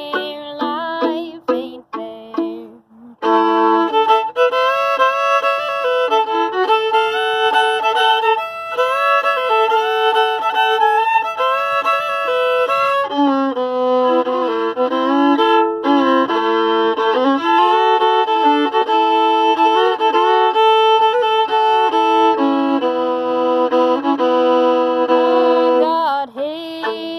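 Solo violin playing an instrumental break: short separate notes for the first few seconds, then from about three seconds in a continuous bowed melody of held notes, at times two strings sounding together.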